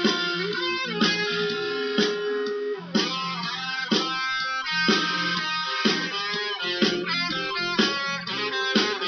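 Instrumental guitar break in a song: plucked guitar notes over a steady beat, with a strong accent about once a second.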